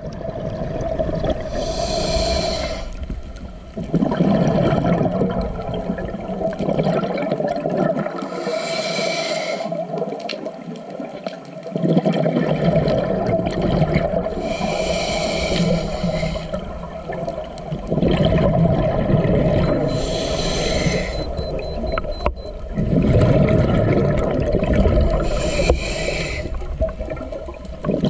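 Scuba diver breathing through a regulator underwater: a short hissing inhale followed by a long rumbling rush of exhaled bubbles, repeating about every six seconds, five breaths in all.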